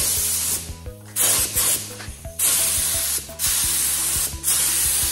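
Compressed-air paint spray gun hissing in several bursts, each cut off briefly as the trigger is released and pulled again.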